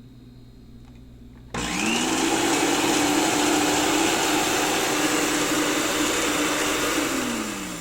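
Electric countertop blender switched on about a second and a half in: its motor spins up quickly and runs steadily at full speed, then winds down near the end.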